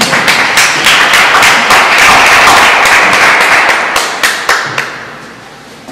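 Audience applauding: scattered claps build into full applause, then die away near the end.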